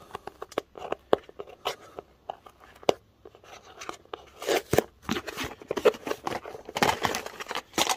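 Cardboard box being handled: flaps bent open and folded, with a quick run of clicks, rustles and crinkles that grows busier in the second half.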